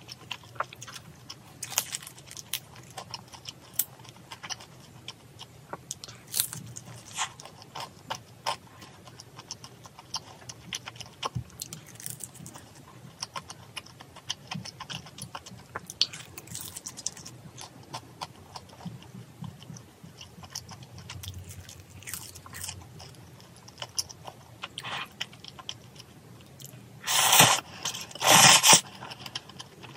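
Close-miked eating: chewing and crunching of crispy pan-fried dumplings, with many small wet clicks of the mouth. Near the end, two loud slurps of noodles about a second apart.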